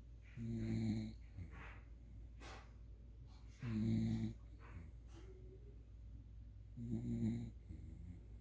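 A sleeping pet snoring: three low, pitched snores about three seconds apart, each lasting around half a second, with softer breathing between them.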